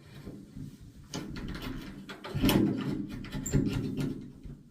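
A pocket knife worked at a door latch to open the door: a run of clicks, scrapes and rattling, with louder knocks about halfway through.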